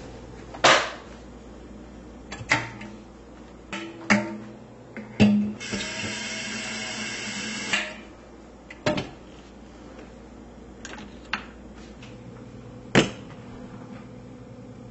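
Kitchen handling noises: about six sharp knocks and clicks spread out, with a steady hiss lasting about two and a half seconds a little past the middle.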